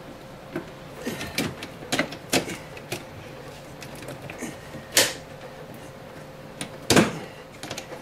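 Plastic clicks and knocks of a refrigerator's push-fit water-line connectors being handled and snapped back together. Irregular taps throughout, with two sharper clicks about five and seven seconds in.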